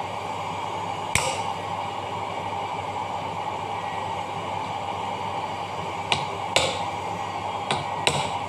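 Hammer tapping a steel rod set on a ball bearing in a dough mixer's cast gearbox housing: one sharp metallic tap about a second in, then four more near the end. A steady hum runs underneath.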